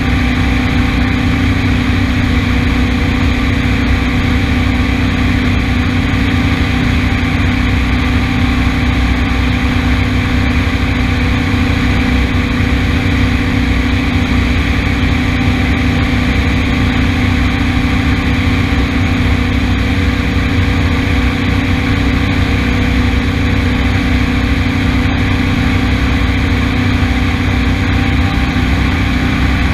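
An engine running steadily at a constant speed, with an even hum and a low rumble that do not change.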